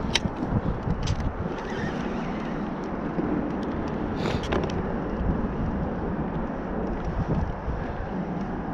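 Wind buffeting the microphone, a steady low rumble, with a few brief clicks near the start and about four seconds in from handling the baitcasting rod and reel.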